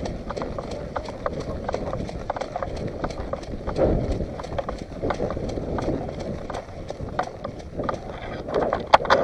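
Footsteps crunching and rustling through dry undergrowth, with irregular twig and leaf crackles and a louder burst of crunching near the end.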